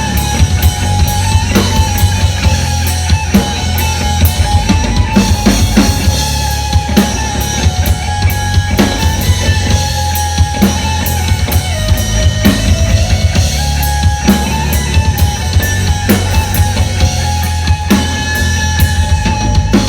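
Live band music: a drum kit keeps a steady beat with fast cymbal ticks over a heavy sustained bass, while a lead line holds long notes that step up and down in pitch.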